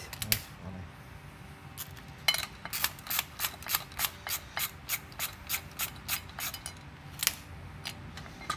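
Hand socket ratchet clicking as it turns the nut on a coil-over strut's top mount: a few scattered clicks, then from about two seconds in an even run of about three clicks a second.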